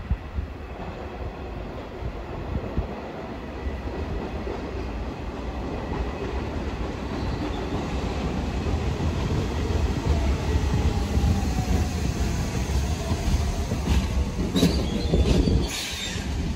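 New York City subway train running along the track and coming closer, growing steadily louder. Wheels clack over rail joints, with a few sharp clacks and some wheel squeal near the end.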